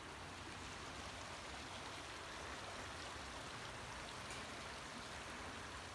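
Steady, even hiss of water, with no rhythm or changes.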